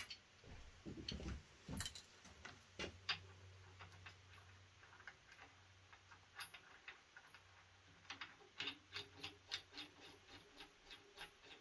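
Faint clicking of a socket ratchet turning the engine's crankshaft by its bolt: a few scattered clicks and knocks at first, then a steady run of about three clicks a second over the last few seconds.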